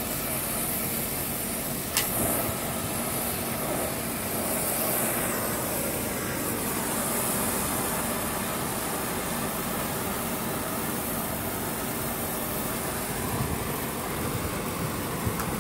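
Gas brazing torch burning with a steady hiss as it heats a pipe joint on an air-conditioner compressor, with one sharp click about two seconds in.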